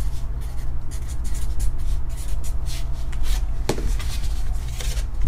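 Felt-tip marker writing on a cardboard mailer: a quick run of short scratchy strokes, with a sharp click about four seconds in, over a steady low hum.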